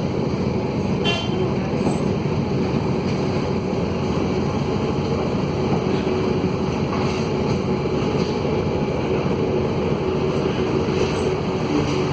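Mercedes-Benz OM904LA diesel engine of a Mercedes-Benz OH-1115L-SB midibus running steadily, heard from on board, with the excess noise of a broken exhaust.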